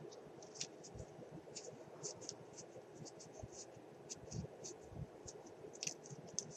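Soft, irregular scratchy rustling of a cut paper spiral being twisted up around tweezers by hand.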